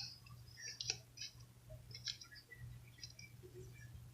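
Faint, irregular clicks and taps of small plastic toy parts being handled, as wheels are fitted onto a toy truck.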